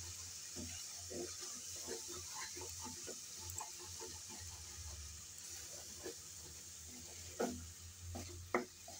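Wooden spatula stirring and scraping a thick onion-and-spice masala around an aluminium pan, with a soft steady sizzle of the paste frying in oil and a little water; two sharper taps of the spatula on the pan near the end.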